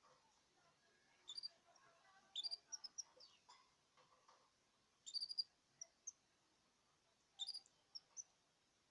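Young canaries chirping in a cage: short, high chirps in four quick clusters.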